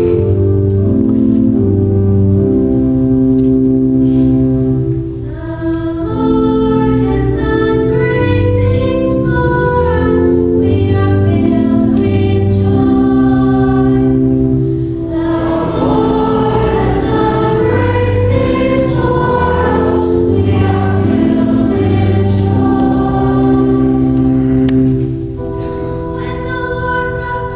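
Church hymn sung by cantors and a choir over organ accompaniment of long held chords. The singing grows fuller from about the middle, then thins out near the end.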